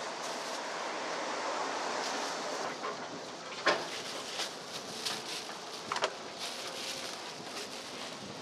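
A heavy whole jackfruit handled on a metal-topped table, with two sharp knocks, one about halfway through and a second a couple of seconds later, and a few lighter taps, over steady outdoor background noise.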